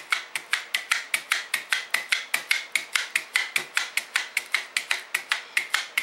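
Hand-held Jaccard blade meat tenderizer pressed rapidly and repeatedly into a raw steak. It makes an even, sharp click about five times a second as the spring-loaded blades plunge into the meat and retract.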